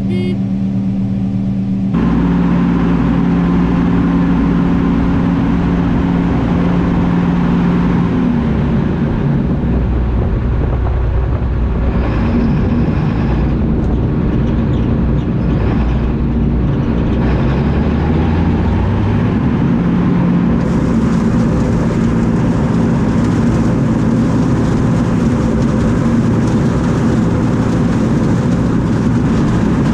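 John Deere 9660 STS combine running steadily under load. It gets louder about two seconds in, and one note rises in pitch around two-thirds of the way through.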